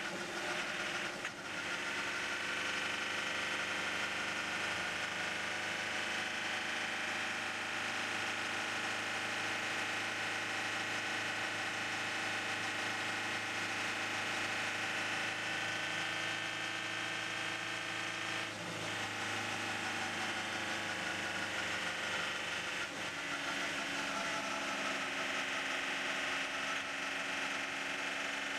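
Audi R18 e-tron quattro's V6 turbodiesel engine running steadily at speed, heard from the cockpit, with brief shifts in pitch about a second in and twice in the second half.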